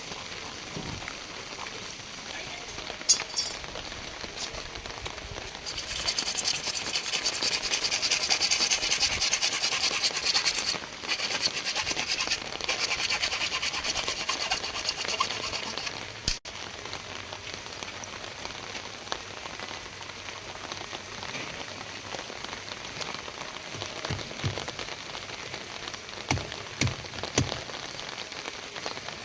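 Steady rain falling, with a rough, rasping rub for about ten seconds in the middle and a couple of sharp clicks.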